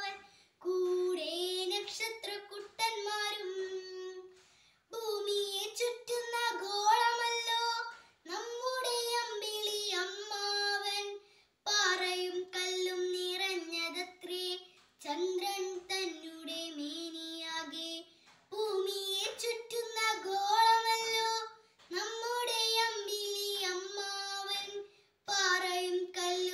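A young girl singing a Malayalam children's poem unaccompanied, in short phrases with brief pauses for breath between them.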